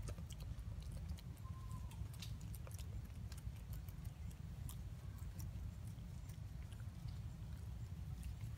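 Quiet forest ambience: a low steady rumble with scattered faint clicks and one short, high squeak a little over a second in.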